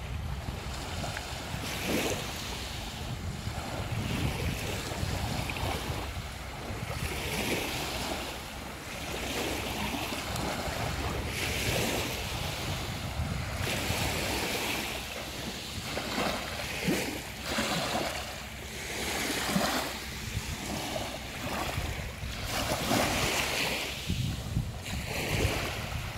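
Sea waves washing onto the beach, the hiss swelling and falling back every few seconds, with wind rumbling on the microphone.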